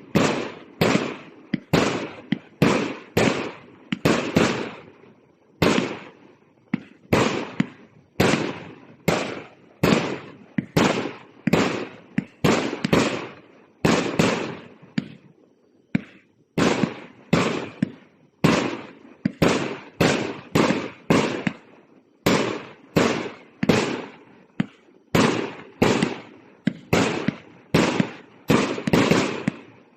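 A 1.2-inch, 200-shot firework cake firing shot after shot: a steady run of sharp reports, about one to two a second, each dying away quickly, with a short pause around the middle.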